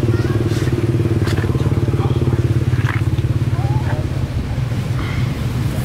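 An engine running steadily, a low even hum with a fast pulse, with a few short high-pitched chirping calls over it.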